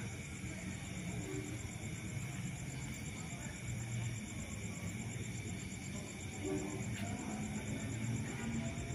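Night insects chirping in a steady, fast-pulsing high trill, over a faint low murmur of voices.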